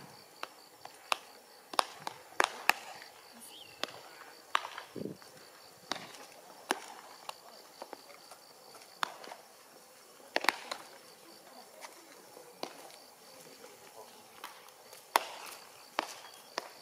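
Baseballs smacking into leather gloves during catch, sharp pops at irregular intervals, some loud and close and others fainter from throwers farther off. A faint high pulsing chirp runs underneath.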